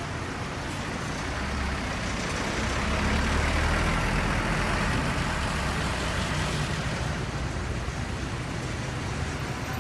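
A bus driving past: engine rumble and road noise swell to their loudest about three to four seconds in, then slowly fade.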